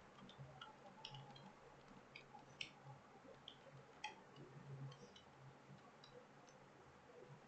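Faint, irregular clicking at a computer, about a dozen sharp clicks spread unevenly, over a faint low hum.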